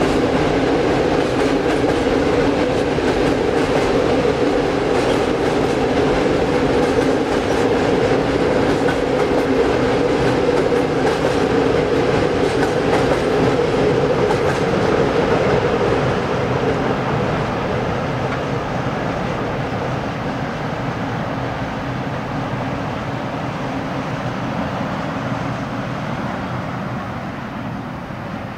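Container freight train's wagons rolling over the rails and a steel truss bridge: a steady rumble with wheel clatter, growing fainter over the second half as the end of the train moves away.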